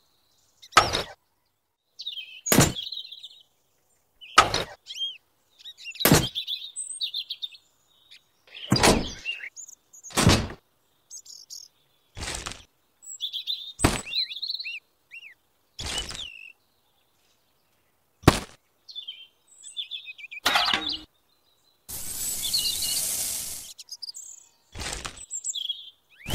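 Sharp taps and knocks of small toy model pieces being handled and set down, roughly one every one to two seconds, with bird chirps between them. A short hiss comes near the end.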